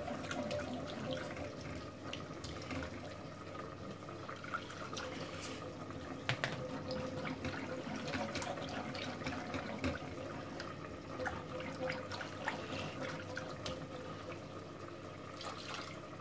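Wire whisk stirring milk into a butter-and-flour roux in a metal saucepan for a béchamel: a steady liquid swishing with light clicks of the wires against the pan, the whisking done to keep lumps from forming as the milk goes in.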